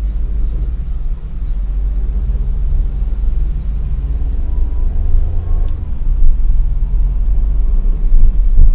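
Steady low rumble of a car's engine and tyres heard from inside the cabin while driving slowly in traffic.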